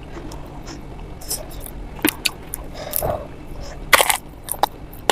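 Close-miked eating sounds: wet chewing clicks and lip smacks, then a sharp crunchy bite into a fried dal kachori's crisp crust about four seconds in, the loudest sound, followed by a few smaller crunches.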